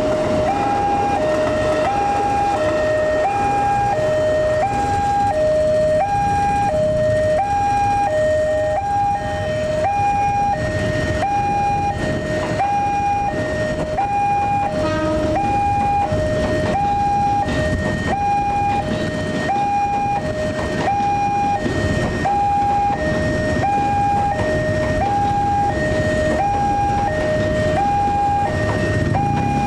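Railway level-crossing warning alarm sounding continuously: an electronic two-tone signal alternating high and low, about one cycle a second, which warns that a train is approaching. A low rumble runs underneath.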